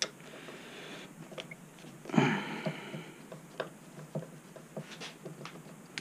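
Small Phillips screwdriver undoing the screws on a Onewheel Pint's rail: faint scattered clicks and handling noises, with one brief louder noise about two seconds in.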